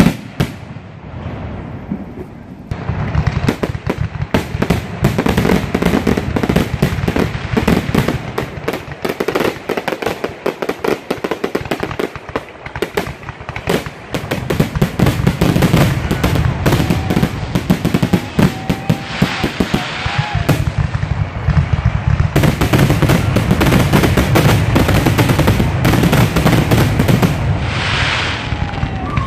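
Fireworks display: a single bang at the start, then from about three seconds in a dense, rapid barrage of booms and crackling. It thins out briefly about halfway and then builds up again, heavier than before.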